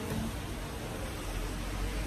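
Steady hiss of street traffic from a busy road, with a low rumble swelling near the end.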